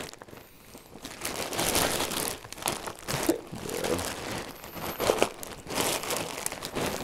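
Cloth rustling and crumpling as a bundle wrapped in plaid shirts is shaken hard in the arms, to churn the cream mixture inside into ice cream; it is an irregular, noisy rustle that grows louder about a second in.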